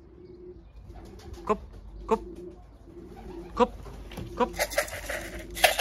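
Pigeons cooing, low notes repeating about once a second, with five sharp, loud, falling chirps from another bird over them.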